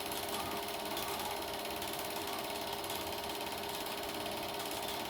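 Super 8 film projector running, its film-advance mechanism clattering fast and evenly over a steady tone.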